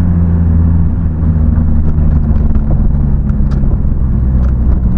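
Honda Civic Type R FN2's 2.0-litre four-cylinder engine running through a Cobra resonated sports exhaust while driving, a steady low drone whose pitch slowly drops.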